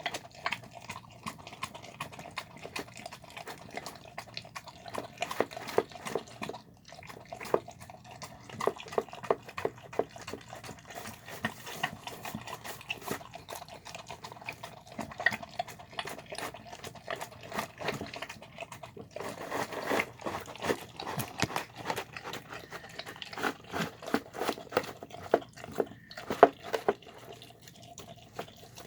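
A dog eating a wet, sloppy meal of chicken and rice: quick, irregular wet smacks, laps and chewing clicks from its mouth in the food.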